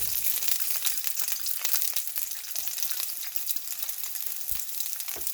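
Chopped onions and ginger frying in hot oil in a pot, a steady dense sizzle and crackle. Two short dull knocks sound near the end.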